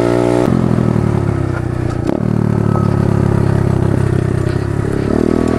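Honda pit bike's small single-cylinder four-stroke engine running under the rider. The revs drop about half a second in, hold lower, then climb again near the end. A single knock comes about two seconds in.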